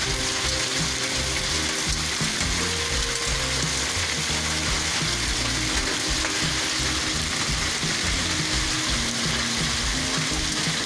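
Heavy rain mixed with small hailstones, about 1 cm across, pelting wet ground and tree leaves. It makes a loud, steady hiss throughout.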